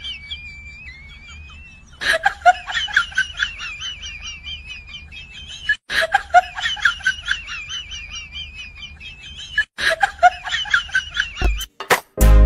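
Comic sound effect of high-pitched, rapidly warbling chatter, played in three near-identical runs over a faint low hum, after a thin wavering whistle at the start.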